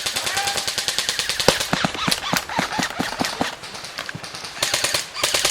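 Airsoft electric guns firing on full auto: rapid streams of shots in long bursts, one at the start and another near the end.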